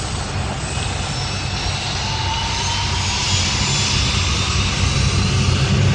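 Hovercraft running: a steady drone of its engine and ducted propeller over a broad rush of air, slowly getting louder.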